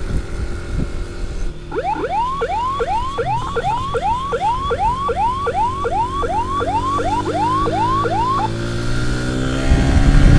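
Electronic emergency siren in a fast yelp, rapid rising sweeps about two and a half a second for several seconds, over a running motor vehicle engine. After the siren stops, the engine revs up near the end.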